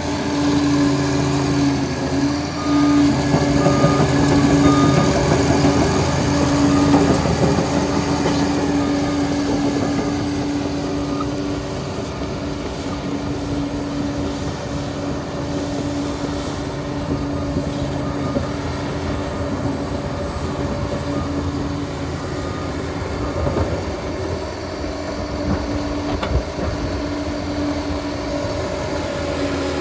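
Liebherr PR 746 crawler dozer working: its diesel engine runs with a steady droning tone over a rough clatter. The sound is louder for the first several seconds, then eases to a steadier level.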